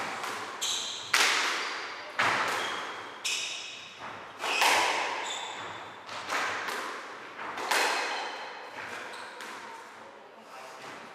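Squash rally: sharp cracks of the ball off racket and walls about once a second, each ringing out in the echoing court, with short squeaks of shoes on the wooden floor between hits. The hits stop about nine seconds in as the rally ends.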